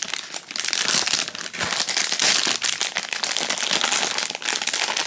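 Foil blind-bag pouch crinkling and crackling continuously as hands crumple it and pull it open.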